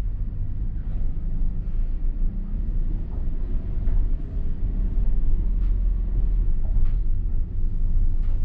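A vehicle on the move: a steady low rumble of road and engine noise that starts abruptly and cuts off suddenly near the end.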